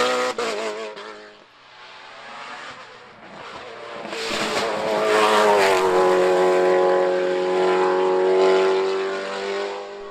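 Sports-prototype race car engine at high revs. It is loud at first and drops away with a few short pops in the first second or so, then climbs again about four seconds in and holds a steady high note before fading near the end.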